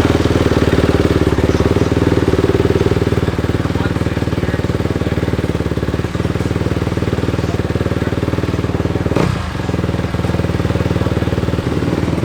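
Motocross bike engine running steadily close by, its exhaust pulses even, with a brief dip in level about nine seconds in.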